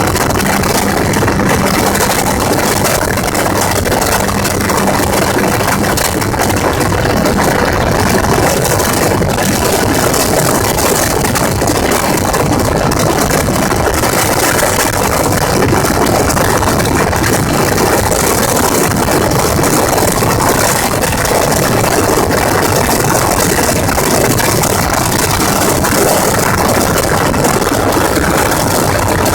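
Gyrocopter's engine and propeller running steadily, mixed with a constant loud rush of wind.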